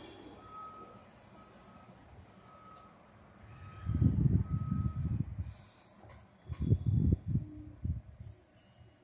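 An insect chirping steadily, faint short chirps repeating about one and a half times a second. Two loud bursts of low rumbling noise, about four and about seven seconds in, cover it.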